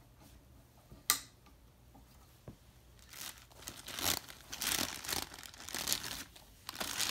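A sharp click about a second in, then, from about three seconds in, clear plastic bags crinkling in irregular bursts as they are handled. The bags hold the TV's printed manuals and remote.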